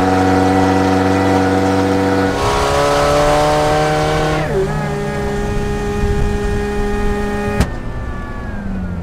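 Miata engine with an Eaton M45 Roots supercharger pulling under load, its loud supercharger whine rising with the revs and then dropping back. Near the end comes one sharp pop, after which the hiss stops and the whine and engine wind down: typical of the charge pipe blowing off the supercharger outlet for lack of a blow-off valve.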